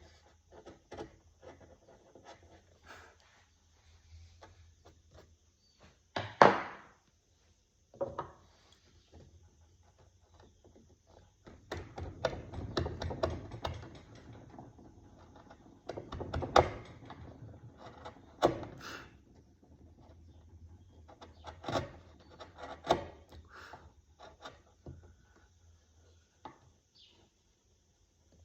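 Wood being carved by hand: irregular taps and knocks on the wood, one loud knock about six seconds in, and a longer run of scraping cuts near the middle.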